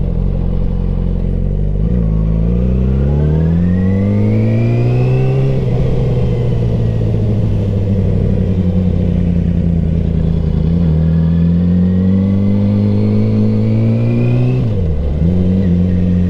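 2007 Yamaha R6's 600 cc inline-four engine pulling on the highway, with a low wind rumble beneath it. The engine note dips about two seconds in, then climbs steeply for a few seconds before holding a steady cruise. It climbs slowly again, dips sharply near the end and settles back.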